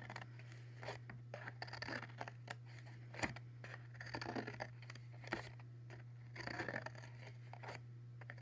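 Scissors cutting short slits into the rim of a paper plate: a series of quiet, irregular snips and crunches of the stiff paper.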